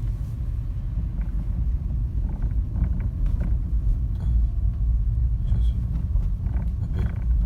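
Road and tyre rumble inside the cabin of a 2008 Honda CR-V driving on fine gravel, with a few faint, irregular light knocks: the quiet rattle of a worn steering shaft.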